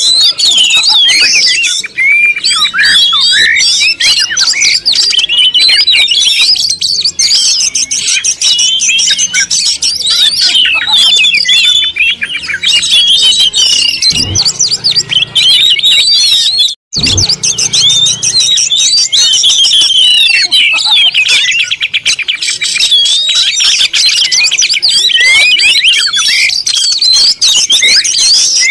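Many birds chirping and twittering at once, a dense and loud chorus of short overlapping calls, with a brief break about two-thirds of the way through.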